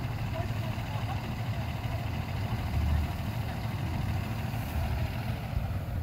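Motor vehicle engine running with a steady low rumble, briefly louder about halfway through.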